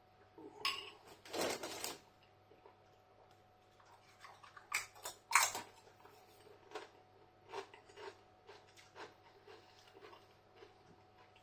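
A person eating close to the microphone: crunching and chewing mouthfuls of tortilla chips, with short sharp clicks and taps scattered through, the loudest about halfway in.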